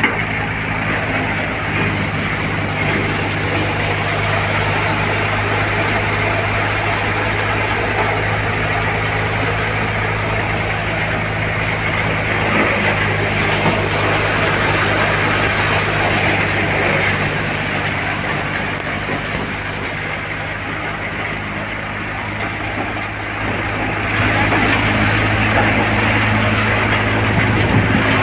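RAJ multicrop thresher (hopper model), driven by a tractor, running while threshing soybean: a steady low engine-and-drum hum under a dense rushing noise of the machine working, louder for the last few seconds.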